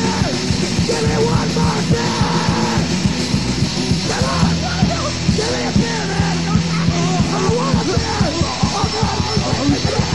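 Punk rock band playing loud and fast: rapid drumming under distorted guitar and bass, with yelled vocals.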